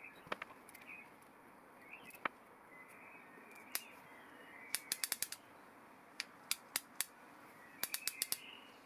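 Ratchet and sprung pawl of a steel Eureka form relieving tool clicking as the indexing sleeve is turned by hand. The sharp clicks come singly at first, then in a quick run of about five around the middle, a few spaced clicks, and another quick run near the end.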